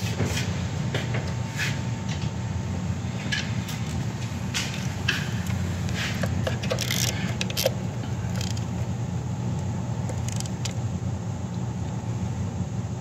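Scattered light metallic clicks and scrapes from hands handling parts in a car's engine bay, with a small cluster of them about seven seconds in, over a steady low background hum.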